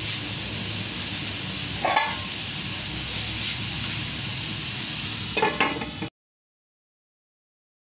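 Bamboo shoots sizzling steadily as they sauté in a wok, with a short metal clatter a little after five seconds as a metal lid is set on the wok. The sound cuts off abruptly to silence about six seconds in.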